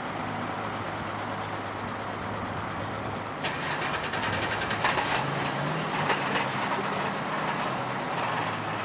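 Heavy truck engine running steadily under load, rising slightly in pitch about halfway through. Metallic rattling and clanking joins in about three and a half seconds in.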